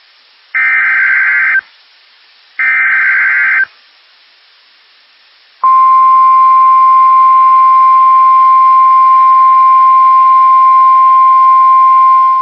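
EAS SAME data header: two one-second bursts of warbling data screech, about a second apart. After a short pause, the steady single-pitch NOAA Weather Radio 1050 Hz attention tone starts about six seconds in and holds, dropping in level near the end. Together they mark the start of a new alert, here a tornado warning.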